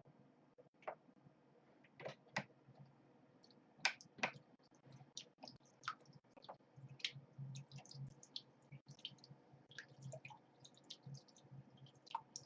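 Homemade 12 V mini centrifugal water pump, driven by a computer-fan motor, running at its full 12 V and pumping water: faint irregular clicks with a low hum that comes and goes.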